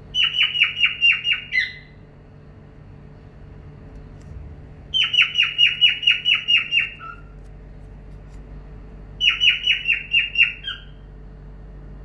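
Cockatiel calling in three bursts of rapid, evenly repeated sharp notes, about five a second, each burst lasting around one and a half seconds.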